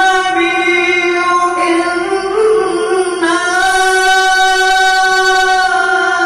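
A man chanting a Maulid devotional recitation into a microphone, singing long, drawn-out melodic notes; the longest is held for over two seconds near the end.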